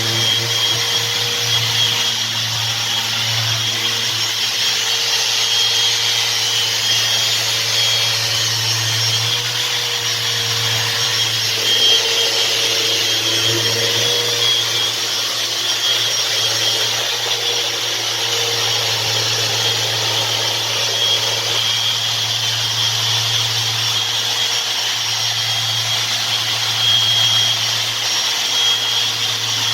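Electric sander running steadily while sanding and polishing a marble countertop, a steady hum under a high hiss, with small shifts in pitch as it works the stone.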